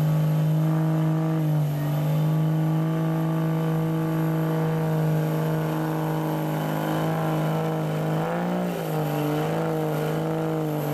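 Dodge Ram's Cummins inline-six diesel pulling a weight-transfer sled under full load, held at high, steady revs. About eight seconds in the revs dip briefly, then waver as the sled drags harder.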